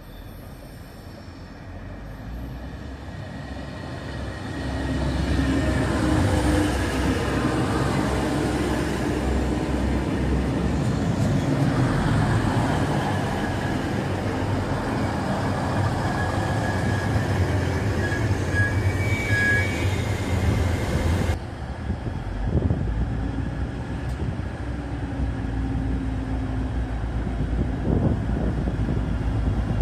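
Two coupled DB Class 612 diesel multiple units pulling into the platform, engines running and wheels rolling past close by, growing loud about five seconds in. Brief high squeals come about two-thirds through, and then the sound changes abruptly to a steadier engine hum.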